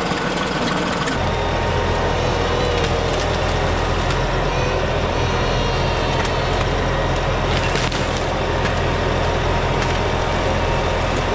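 Diesel engine of a large New Holland tractor running steadily, its low drone growing fuller about a second in.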